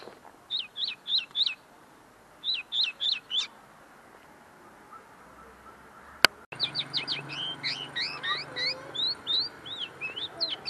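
Common linnet singing: two short phrases of four quick falling notes each in the first few seconds, then, after a sharp click a little past the middle, a fast, continuous twittering song. The bird is still finishing its song, which its owner says is not yet fully polished.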